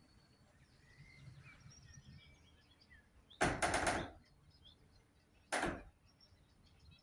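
Faint small birds chirping, broken by two loud sudden noises: a quick cluster of several strokes lasting about half a second, about three and a half seconds in, and a single shorter one about two seconds later.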